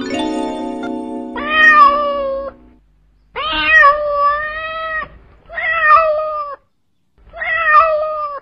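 Domestic cat meowing four times, each meow long and drawn out. Piano music plays under the first meow and then stops.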